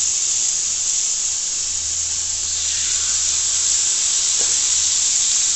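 Oil-coated stuffed chicken breasts sizzling on a hot grill: a steady hiss.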